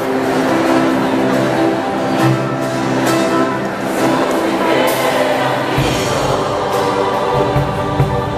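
A large choir with a live band of guitars, drum kit and keyboard performing a worship song, with cymbal hits; the low end fills out about six seconds in.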